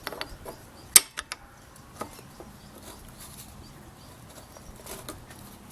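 Light clicks and taps of new brake pads being fitted into a motorcycle's rear brake caliper and nudged until their holes line up. The sharpest click comes about a second in, followed by a few smaller ones.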